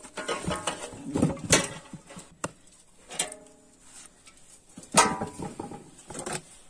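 Hands rubbing and crumbling a dry compressed coco peat brick in an aluminium basin: irregular fibrous rustling and scraping, with a sharp knock about five seconds in.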